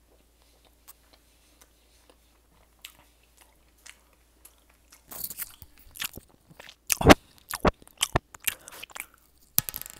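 Close-miked eating: mouth sounds and chewing of fast food. Faint wet clicks for the first half, then from about five seconds in louder crunching bites and chewing with sharp clicks.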